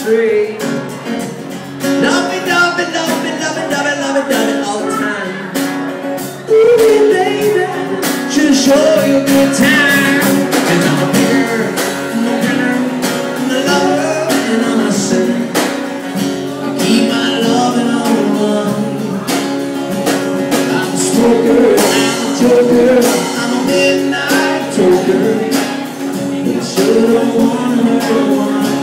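Live acoustic guitar strumming with a drum kit and cymbals played along, in a long instrumental stretch of a blues-rock song.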